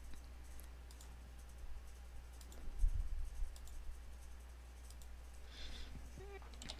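A few scattered computer mouse clicks over a steady low hum, with a dull low thump about three seconds in.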